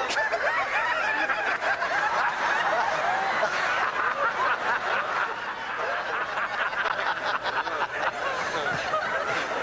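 A crowd laughing hard, many people's laughter overlapping without pause: the so-called holy laughter of a charismatic revival meeting.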